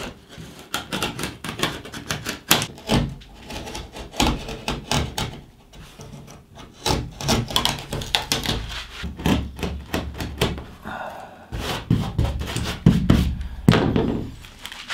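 Utility knife cutting and prying delaminated fiberglass off a cedar strip canoe hull: an irregular run of sharp clicks, snaps and scrapes as the lifted glass cracks and tears away from the wood.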